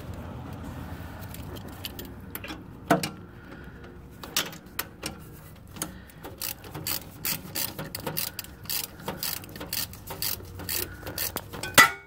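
Socket ratchet wrench clicking as it backs out a loosened coolant-line bolt: a few single clicks at first, then a steady run of about three clicks a second.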